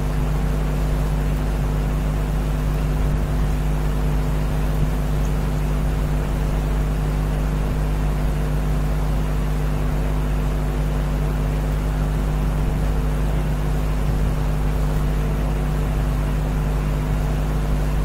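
Steady low hum and drone with several fixed pitches, unchanging and without any sudden sounds: background noise of the recording setup.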